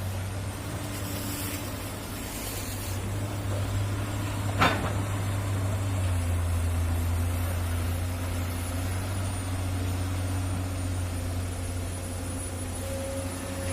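Diesel engines of a Komatsu PC200 excavator and a dump truck running steadily during loading, with one sharp clank about four and a half seconds in. The engine note deepens and gets a little louder about six seconds in.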